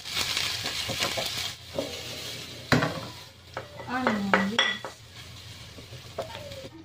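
Chopped aromatics sizzling in oil in a nonstick frying pan while a wooden spatula stirs and scrapes them. A single sharp knock comes a little under three seconds in.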